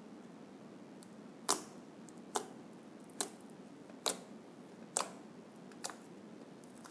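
Slime being pressed with the fingertips, letting out six short, crisp pops at an even pace of about one a second as trapped air escapes.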